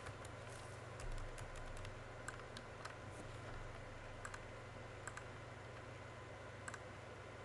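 Faint, scattered clicks of a computer mouse and keyboard keys, a few about a second apart, over a steady low hum.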